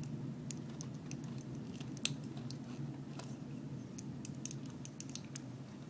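Hard plastic model-kit parts clicking and tapping as they are handled and pressed together, with a sharper click about two seconds in, over a faint steady low hum.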